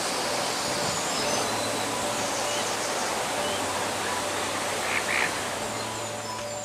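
Waterfowl on a pond giving a brief double call about five seconds in, over a steady outdoor hiss and faint held tones.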